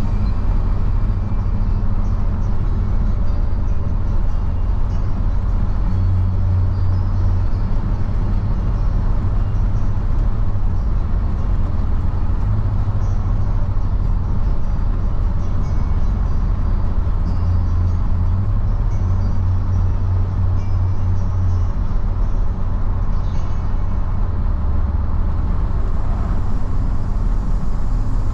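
Steady low rumble of a car's engine and tyres on the road, heard from inside the cabin while driving at a steady speed.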